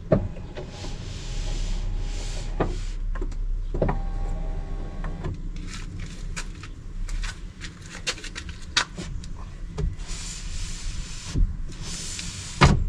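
Jammed rear door window of a BMW X5 E53 being worked: repeated clicks and knocks with stretches of scraping and rubbing from the glass and regulator, over a steady low hum. The glass has come off its window regulator.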